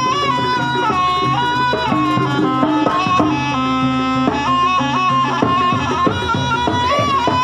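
Javanese jaranan music: a reedy shawm (slompret) plays a stepped, wavering melody over kendang hand drums and sustained low gamelan notes.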